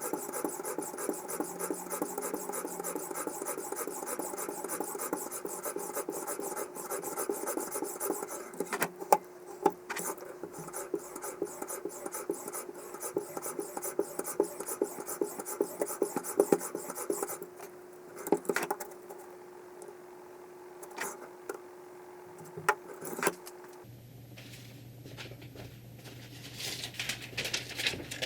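Abrasive stone of a guided knife sharpener stroked rapidly back and forth along a knife edge, in a steady rasping rhythm. About two-thirds of the way through the strokes stop, leaving a few scattered clicks, and near the end a different steady sound with a low hum comes in.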